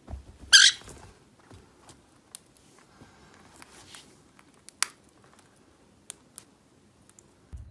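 White-bellied caique giving one short, high squeak about half a second in, followed by soft rustling and a few sharp clicks as it moves about on a fabric blanket.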